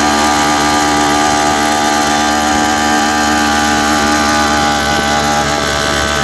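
Vehicle engine running steadily at an even speed while riding, heard from inside the small open passenger cabin.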